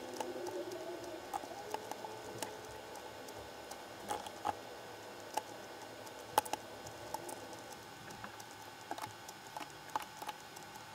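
Faint, irregular clicking of a computer mouse and keyboard, a few clicks a second, over a soft steady room hiss.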